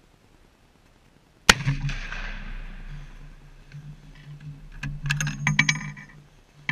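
A .50 BMG rifle fires a single spotter-tracer round: one very loud shot about a second and a half in, with a long fading echo. From about five seconds in come a run of sharp metallic clicks and clatter, typical of the bolt being worked to eject the spent case.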